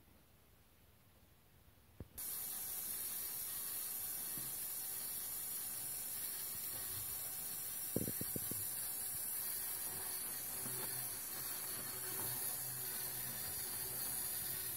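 Electric LEGO Technic motor and plastic gear train of a Klann-linkage spider walker running, heard as a steady high hiss with a faint whir that starts abruptly with a click about two seconds in. A few sharp plastic clicks come about eight seconds in as a hand grips the model's frame.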